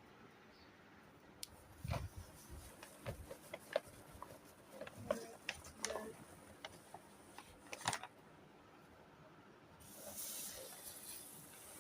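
Scattered light clicks and knocks of kitchen items being handled, then a soft hiss of running tap water starting near the end.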